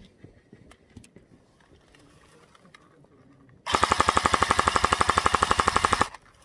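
Airsoft gun firing one rapid full-auto burst of about two and a half seconds, with evenly spaced shots that stop abruptly. It starts a little over halfway through, after a few faint clicks.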